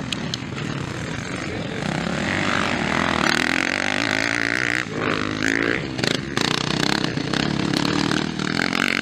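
Motocross bike engines running hard as the bikes race past, the engine note rising and dropping through throttle and gear changes.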